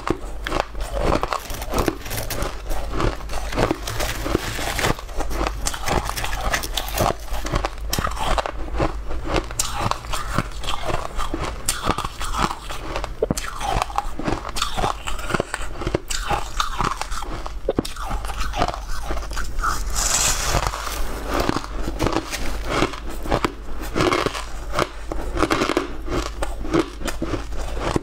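Close-up biting and chewing of crunchy, crumbly white chunks: a dense, continuous run of crisp crunches and crackles.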